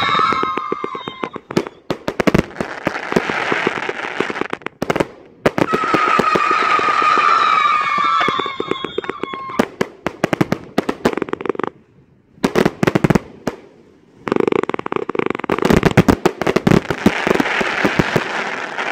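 A 260-shot consumer firework cake firing volley after volley: rapid launch thuds and bursts with dense crackling. Whistling shots that fall slightly in pitch sound near the start and again about six to nine seconds in. There are a few short lulls between volleys.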